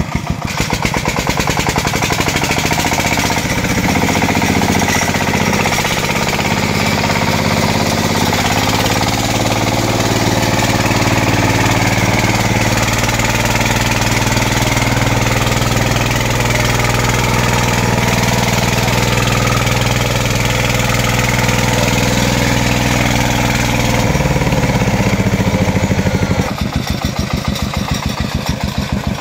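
Single-cylinder diesel engine of a two-wheel walking tractor pulling a loaded firewood trailer up a slope. It idles with slow, even firing beats, speeds up a few seconds in and runs at a steady higher pitch under load for about twenty seconds, then drops back to idle near the end.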